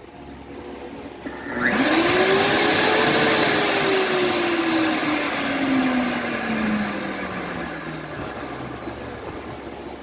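Wolf Gourmet blender motor starting up with a loud whir about two seconds in, its whine rising quickly and then sinking slowly as the motor winds down. This is the blender's fault: it jumps to full speed whatever the setting, then cuts out with an "Err" code.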